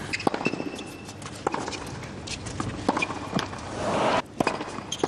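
Tennis rally on a hard court: sharp pops of racket strikes and ball bounces with short high squeaks of players' shoes on the court surface. About four seconds in, a brief swell of crowd noise cuts off suddenly.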